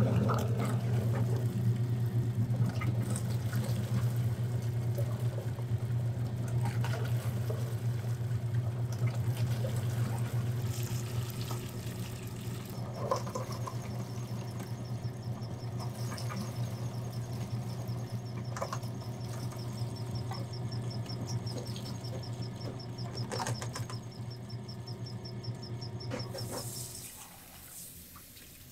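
Electric meat grinder running with a steady low hum while mincing peeled garlic cloves, with a few faint knocks. The motor stops about a second before the end, leaving the faint sound of tap water.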